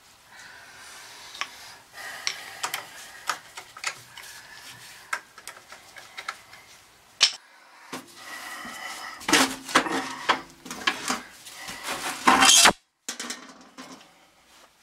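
Hand work on an oil-fired boiler's sheet-metal top: rubbing and scraping with scattered clicks and knocks of tools and metal parts. A louder stretch of scraping comes in the second half and cuts off suddenly.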